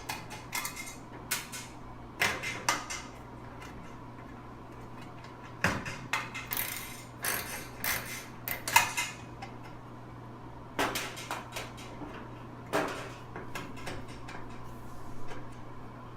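A ratchet and socket clicking and clinking on metal as quarter-inch screws are taken out of a dryer's sheet-metal back panel, in irregular bursts, with a steady low hum underneath.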